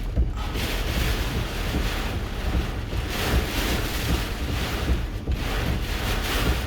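Hurricane eyewall winds gusting hard against a parked vehicle, with heavy wind rumble on the microphone; the gusts swell and ease every couple of seconds.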